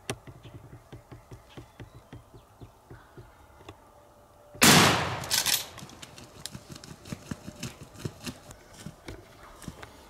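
A single shotgun blast about halfway through, sudden and very loud, dying away over about half a second. It is followed by a run of quick ticks and thumps.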